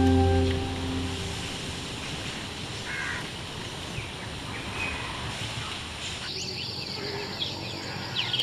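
Soft music fades out in the first second, leaving outdoor ambience with a steady hiss and a few short bird chirps. About six seconds in, a high steady insect drone starts, with sharp sliding bird calls over it.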